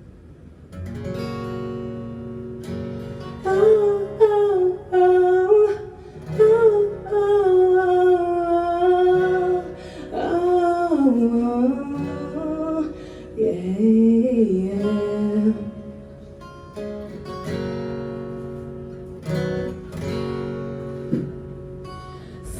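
Live song intro: acoustic guitar strummed and plucked under a wordless sung melody that glides up and down.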